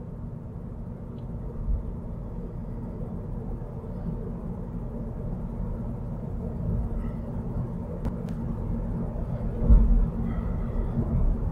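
Steady low road and engine rumble inside the cabin of a moving car, with a brief low thump near the end.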